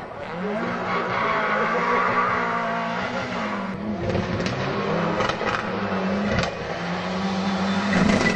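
Rally car engines revving hard through a tight bend, the pitch rising and falling with the throttle and gear changes. First a small hatchback pulls away, then a Toyota Celica GT-Four comes through from about four seconds in, with several sharp cracks over its engine and more near the end.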